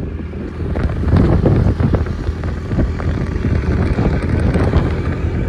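Wind buffeting the microphone over the steady rumble of a vehicle moving along a road.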